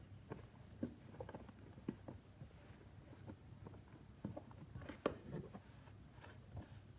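Faint, soft pats and rustles of hands brushing off and pressing purple moldable play sand on a tabletop, with a few light taps, the sharpest about five seconds in.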